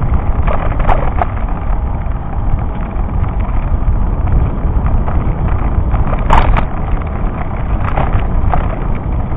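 Wind buffeting the microphone of a bicycle-mounted camera along with rumble from riding over cracked, patched asphalt. A few sharp knocks and rattles come as the bike jolts over the broken surface, the strongest about six seconds in.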